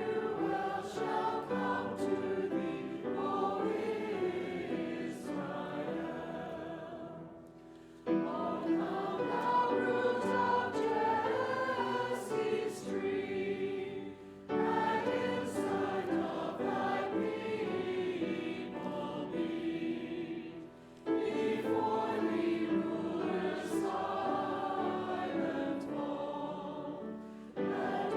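A group of voices singing a hymn, in phrases of about seven seconds, each ending in a brief dip before the next begins.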